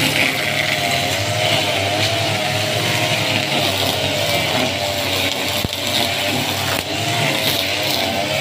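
Backpack brush cutter's small engine running steadily at high speed, its nylon line head cutting wet grass, with the engine note wavering a little.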